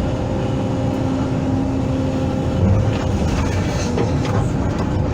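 Hydraulic excavator's diesel engine running steadily, with a steady whine from the hydraulics for the first two or three seconds and a few light knocks later.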